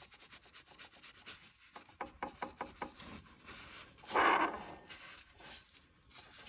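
Water pump pulley of a 3.5L V6, belt removed, turned and rocked by hand: a dry rubbing rasp with a run of quick clicks, and a louder rasp about four seconds in. The pump bearing has a little play and is probably what makes the engine's whirring noise.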